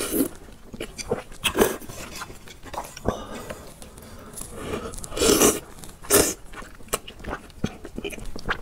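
Close-up eating sounds of spicy instant noodles: slurping noodles and wet chewing, in several short bursts with a longer slurp about five seconds in.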